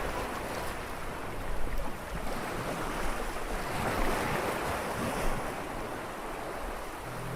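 Sea waves washing and splashing, a steady rushing noise that swells and eases, with wind on the microphone.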